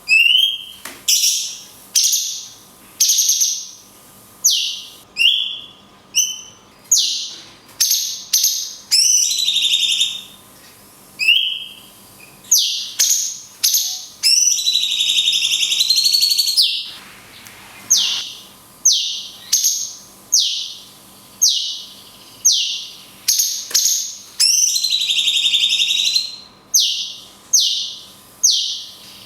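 Cucak cungkok (leafbird) singing loud, shrill high calls roughly once a second, broken by two longer drawn-out sweeping phrases, one near the middle and one near the end.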